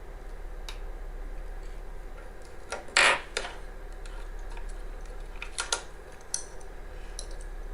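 Small clicks and clinks of barbecue-lighter parts being handled, set down and knocked against each other, with one louder knock about three seconds in.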